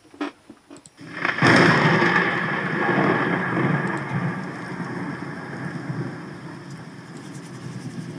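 A sudden rumbling rush of noise like a thunderclap, starting about a second in and dying away slowly over several seconds, after a few short clicks.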